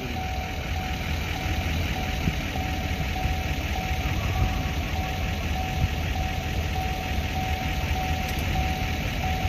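Camaro SS V8 engine idling steadily, with a constant thin whine over the low rumble, while the car is being tuned.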